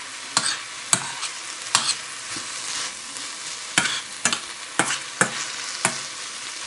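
Sauerkraut and kielbasa sizzling in a frying pan, a steady hiss, with a utensil clicking against the pan about eight times as the food is stirred.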